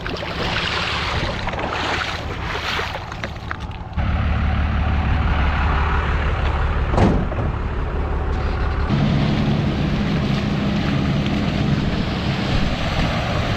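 Diesel truck engine running, a 5.9 12-valve Cummins. About four seconds in it suddenly gets louder and settles into a steady low drone, with a single sharp knock about seven seconds in and a shift to a slightly higher engine note about nine seconds in.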